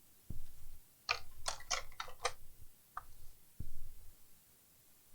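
Light plastic clicks and knocks from a laptop being handled during reassembly: a quick run of about five sharp clicks a second or so in, a single click near three seconds, and a couple of dull low thumps.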